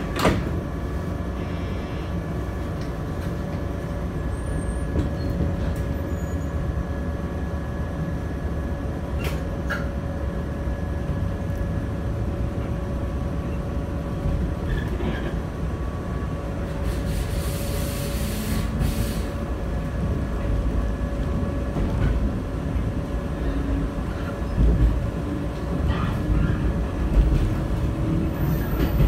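Interior running noise of a JR West 123 series electric railcar pulling away from a station and moving off, with steady motor tones over the rumble. A sharp knock comes right at the start, and a brief hiss of air a little past the middle.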